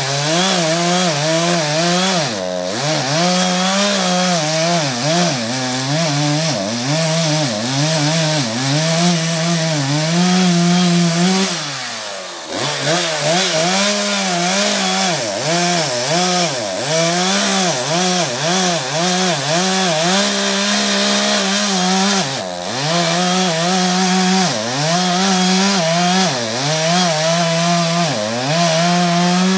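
Two-stroke gas chainsaw cutting through a felled tree trunk at high throttle, its engine pitch sagging and recovering over and over as the chain bites into the wood. Three times it briefly drops back toward idle, the longest dip a little before the middle.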